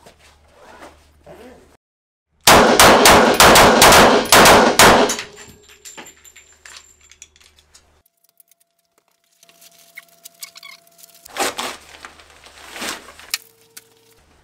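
Rapid string of about ten handgun shots, 9mm and .45 ACP full metal jacket rounds fired into a backpack holding a Level II ballistic armor insert, close together at roughly four a second. Later come softer knocks and rustling as the backpack and insert are handled.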